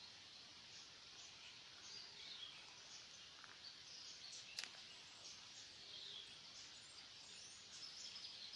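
Faint, scattered bird chirps and calls over a steady background hiss, with one sharp click about halfway through.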